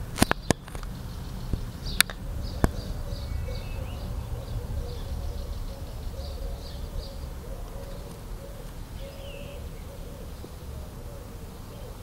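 Small bird chirping in a quick series of short, high calls, over a steady low outdoor rumble. A few sharp clicks stand out in the first few seconds.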